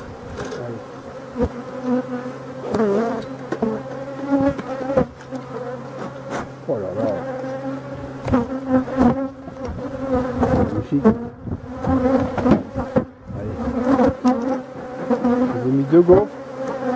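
Honeybees buzzing over an open hive full of bees, a steady hum with individual bees swooping past close by, their pitch wavering up and down.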